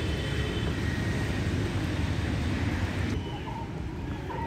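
Wind buffeting the microphone, a loud, rough low rumble that does not let up. Faint short bird chirps come in near the end.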